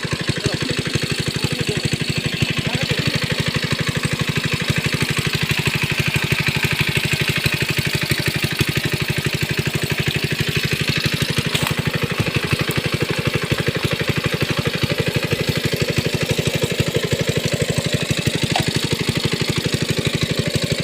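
Small engine running steadily at idle-like speed, with a fast, even pulsing beat and no change in speed.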